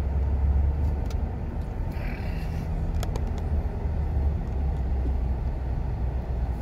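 Steady low rumble of a car driving slowly, heard from inside the cabin, with a few faint clicks.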